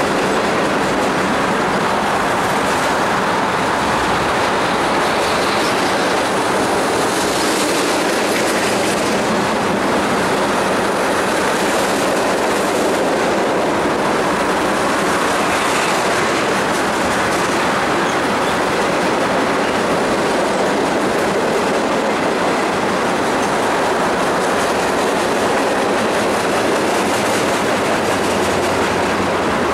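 Freight train cars rolling steadily past at speed: the continuous rumble and rattle of steel wheels on the rails.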